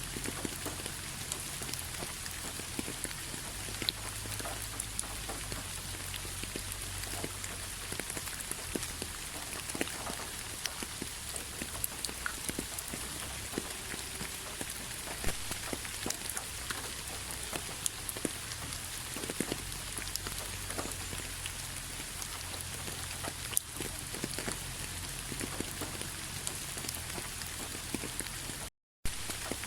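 Steady rainfall, with many separate drop strikes heard as sharp ticks over an even hiss. The sound cuts out for a split second near the end.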